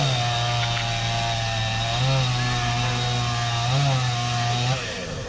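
Chainsaw running as it cuts into a tree. Its pitch rises briefly three times, and it stops shortly before the end.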